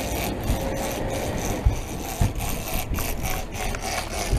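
Motorboat engine running under way, with water rushing along the hull and wind on the microphone. A faint thin whine fades out about a second in, and a couple of low thumps come near the middle.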